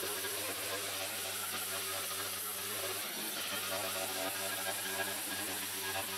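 Petrol brushcutter engine running steadily while its homemade head of bent bicycle spokes spins through grass.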